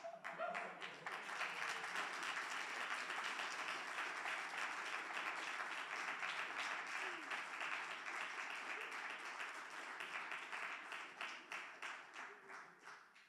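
Audience applauding, swelling at once and dying away near the end.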